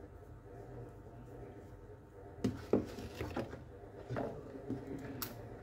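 Plastic and metal cordless-drill parts being handled: after a stretch of faint steady hum, a run of light clicks and knocks starts about halfway through, with one sharp tick near the end.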